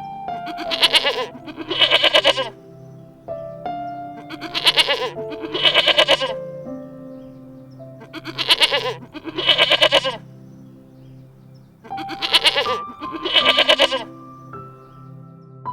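Bleating: four pairs of short quavering calls, a pair about every four seconds, over background music.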